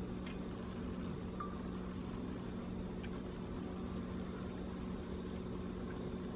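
Steady low hum in a quiet kitchen, with a few faint light clicks.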